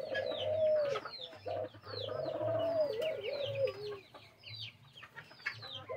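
Doves calling, with the low wavering drawn-out coos of a courting male, several of them separated by short pauses. Many short high chirps from other birds run over them.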